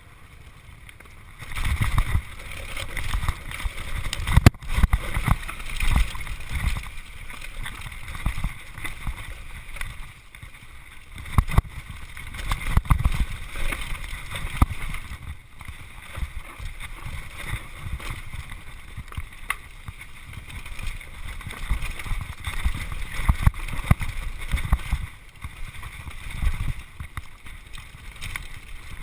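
Downhill mountain bike ridden fast down a dirt trail: wind buffeting the microphone in uneven gusts, with tyre noise on the dirt and frequent irregular knocks and rattles from the bike over bumps.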